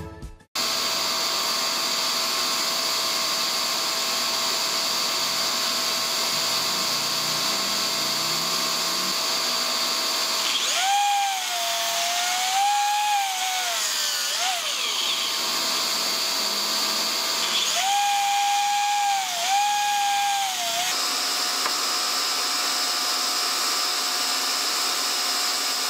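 Festool Kapex sliding miter saw cutting through wooden boards twice, each a high motor whine lasting about three to four seconds with small dips in pitch. A steady whine from the dust extractor hooked to the saw runs underneath.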